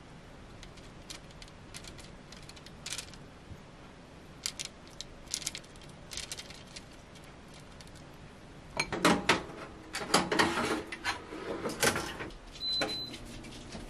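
Faint taps as the dough balls are brushed with oil, then from about nine seconds a wire mesh air fryer basket clattering as it is slid into an air fryer oven, followed by a short electronic beep from the oven near the end.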